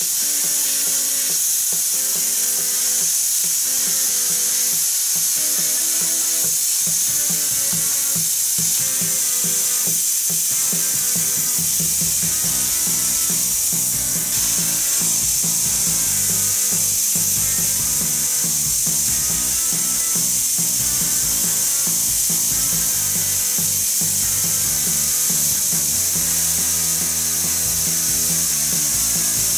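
Hypertherm Powermax 30XP plasma cutter cutting steel plate: a steady, loud hiss throughout, with background music underneath.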